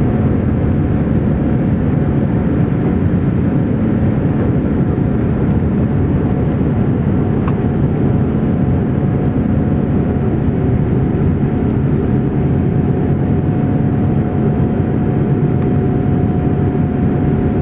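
Cabin noise of a Boeing 787-8 climbing after takeoff: the steady, loud drone of its Rolls-Royce Trent 1000 engines and the airflow, deep and even, with a faint steady hum on top.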